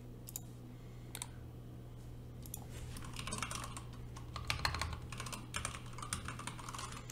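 Typing on a computer keyboard: a couple of single clicks, then a quick run of key clicks from about two and a half seconds in, over a faint steady low hum.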